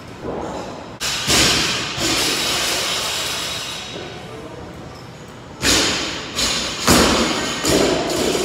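Heavy thuds and clanks of a 65 lb barbell loaded with bumper plates. There is a loud thud about a second in, then several more in the last few seconds.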